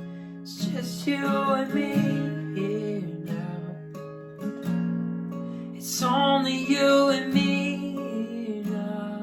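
Worship song: acoustic guitar strumming slow chords, with a sung melody line coming in twice over it.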